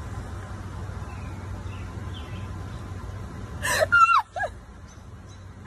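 Steady low hum inside a car's cabin; about three and a half seconds in, a person being swatted with a bag lets out short, high startled yelps that slide up and down, with sharp noisy bursts, over about a second.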